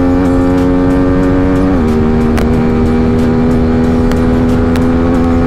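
Yamaha R15's single-cylinder engine running hard at about 110 km/h with heavy wind rush, its pitch stepping down briefly about two seconds in as it shifts up a gear, then slowly climbing again.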